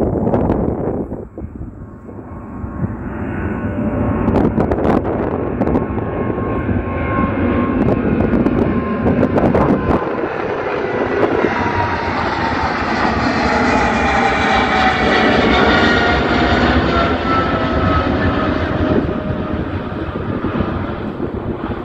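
Boeing 777-300ER's GE90 turbofan engines at climb thrust as the jet passes overhead after takeoff: a heavy jet roar that grows louder, peaks about two-thirds of the way through with whining tones sliding down in pitch as it goes by, then fades as it climbs away.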